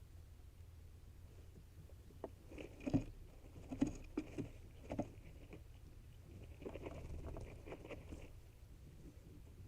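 A bird moving about inside a nest box: scratchy rustling and short taps and clicks as it shifts on the nesting material, in two bursts a few seconds apart, over a steady low hum.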